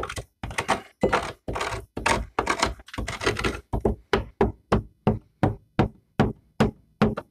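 A hand tool knocking rapidly against the Lada 2101's rusty body metal, about four strikes a second, with a few longer scraping strokes in the first half.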